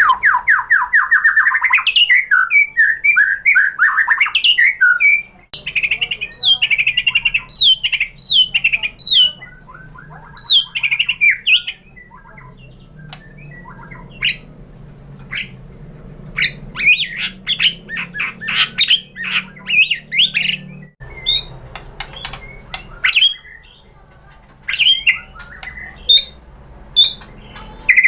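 White-rumped shama (murai batu) singing: a fast, varied string of whistles, chirps and rasping notes, densest and loudest in the first five seconds, then in broken phrases with short pauses.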